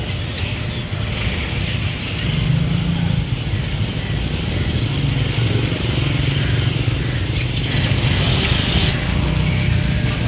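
Street traffic: car and motorbike engines running past, heard as a steady low rumble with hiss.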